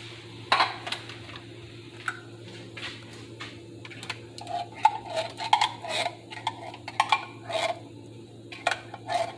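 A spoon scraping condensed cream of mushroom soup out of a metal can and knocking against the can and a nonstick pan while stirring it into cheese sauce: a run of irregular clicks and knocks, busiest in the middle. A steady low hum runs underneath.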